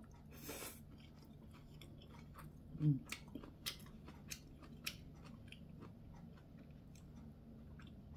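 A person eating braised kimchi close to the microphone: a short slurp as a mouthful goes in, a brief low hum about three seconds in, then chewing with a run of small sharp clicks.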